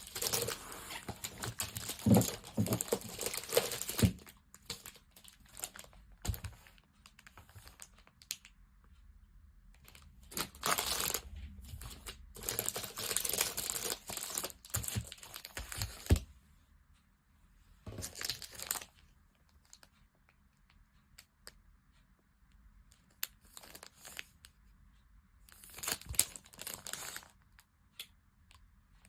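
Packaging crinkling and tearing as items are unwrapped by hand. It comes in several bursts a few seconds long, with quieter gaps between them holding small clicks and handling noises.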